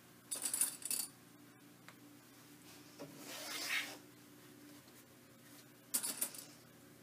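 Stiff interfaced fabric pieces being handled and slid against each other on a table: three short bursts of rustling, about half a second in, a longer swish around three seconds in, and another near the end.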